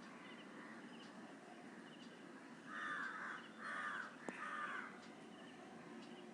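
Three harsh, noisy bird calls in quick succession, each about half a second long, over a faint background of repeated high chirps.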